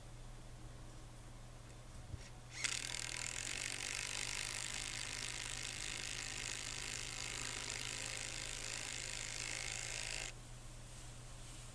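Impact wrench driving a galvanised coach screw through a rail bracket into a timber fence post: a steady, rapid hammering rattle that starts about two and a half seconds in, runs for about eight seconds, then stops abruptly.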